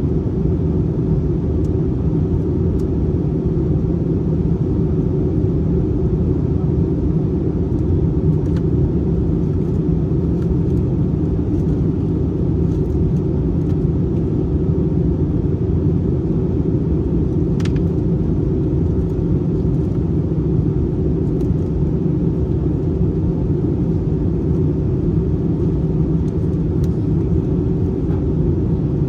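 Steady cabin rumble of an Airbus A321-231 airliner in flight, the drone of its engines and the rush of air past the fuselage, heard from a window seat. A faint click about eighteen seconds in.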